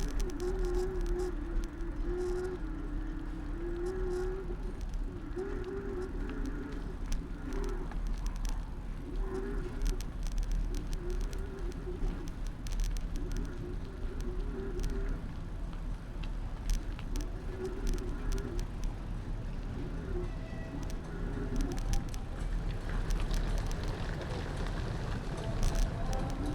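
Bicycle riding on city streets heard from a handlebar-mounted camera: steady road and wind rumble with scattered rattling clicks. A wavering tone comes and goes in roughly one-second pieces through the first twenty seconds, then fades.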